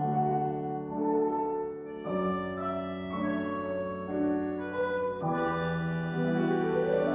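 English concertina playing slow held chords that change about twice, with a rising run of notes near the end.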